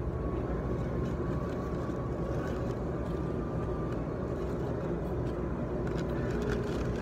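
Steady low rumble of dining-room background noise, with a faint held tone through the first half and a few light clicks.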